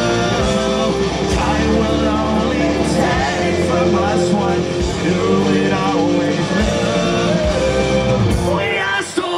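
Punk rock band playing live through a festival PA: distorted electric guitars, bass and drums with a lead vocal. The bass and drums drop out briefly near the end.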